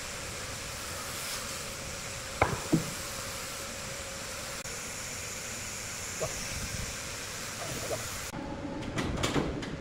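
Steady hum and hiss of sawmill machinery, with two sharp knocks about two and a half seconds in and a few lighter clicks near the end.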